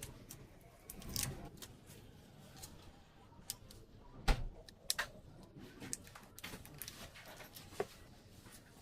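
Scattered small clicks and taps of hand tools and phone parts being handled while an Infinix Note 30 Pro is taken apart, with a sharper knock about four seconds in.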